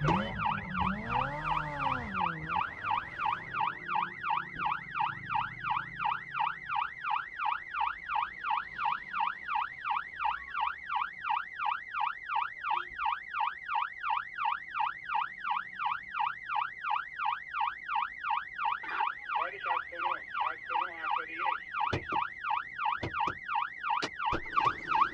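Iranian police car siren in a fast yelp, its pitch sweeping up and down about two and a half times a second. A lower sweeping tone sounds under it for the first couple of seconds, and a few sharp clicks come near the end.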